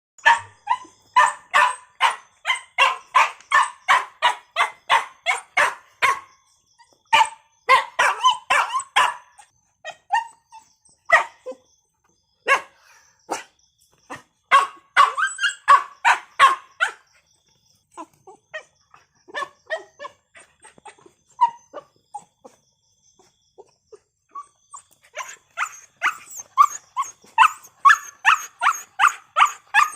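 A dog barking in rapid runs of short barks, about three to four a second, with sparser, scattered barks and brief gaps in the middle stretch.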